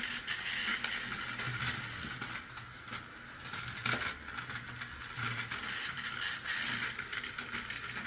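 Battery-powered toy cars running along a plastic puzzle track, their small geared motors whirring steadily with a ratcheting clatter, and one sharp click about halfway through.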